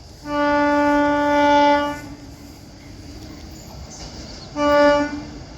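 Indian Railways locomotive horn sounding twice: one long blast of about a second and a half, then a short blast near the end, over the steady running noise of the train.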